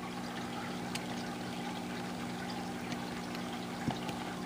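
Steady background hum with a light hiss, and a few faint clicks as small parts of an airsoft revolver's internals are handled and fitted together.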